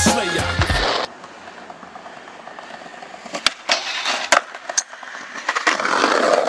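Hip-hop music cuts off about a second in. Then skateboard sounds on concrete: a low rolling hiss, four or five sharp clacks of the board as the skater pops onto and off a handrail, and a louder rushing noise near the end.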